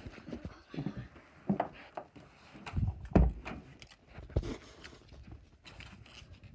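Handling noise from the camera being carried and moved about: a scattered series of soft thumps and rustles at uneven intervals, the loudest a little past the middle.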